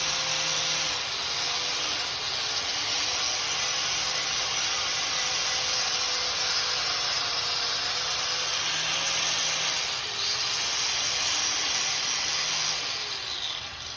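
Stick welding arc (a coated rod burning on steel plate) crackling and hissing steadily, with a brief dip about ten seconds in, dying away near the end.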